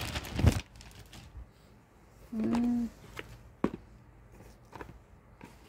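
Plastic courier bag crinkling and rustling for about half a second, then a few light taps and clicks of small cardboard boxes being handled and set down. A short steady hum sounds once a little before the middle.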